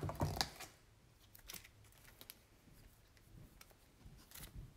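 Faint scattered clicks and rustles of trading cards and their packaging being handled, with a couple of louder knocks at the start.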